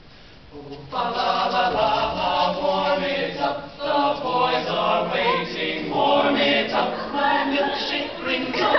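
A cappella choir singing in several parts, unaccompanied. The voices come in about a second in after a brief hush.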